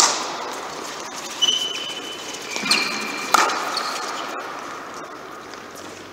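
Footwork drill on an indoor tennis court: sharp knocks, one at the start and two close together about three seconds in, ringing in the hall's echo. Several short high squeaks come between them.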